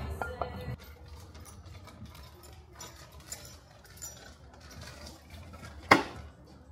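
Scattered light metallic clicks and ticks of engine internals being handled and turned, with one sharp click near the end. Background music fades out within the first second.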